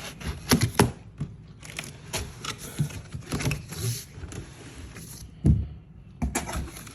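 A large cardboard box being opened and its packaging handled: irregular knocks, scrapes and rustles, with the sharpest knocks about half a second in and again near the end.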